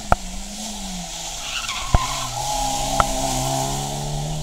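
Peugeot 206 rally car taking a hairpin, its engine easing off and then rising in pitch as it accelerates out from about two seconds in, with tyres squealing. Three sharp cracks, near the start, about two seconds in and about three seconds in, are the loudest sounds.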